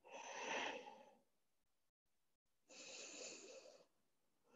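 A person breathing audibly during a yoga stretch: two slow breaths about a second long each, the first louder.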